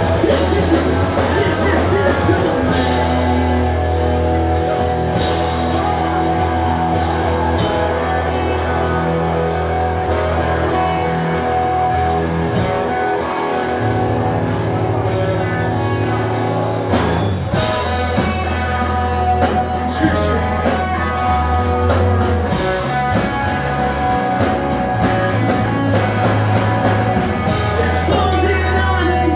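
A pop-punk band playing live: distorted electric guitars, bass and a drum kit, with a singer's voice over them.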